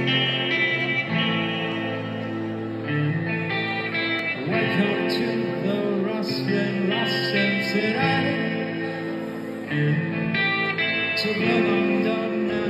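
Live band music: electric guitars and keyboards playing sustained chords and melody over bass and drums, with no lyrics sung.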